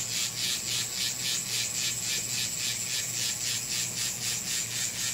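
Finishing Touch Flawless facial hair remover running against the skin of the cheek: a pretty loud, steady high buzz with a rasping pulse about five times a second as the head rubs over the face.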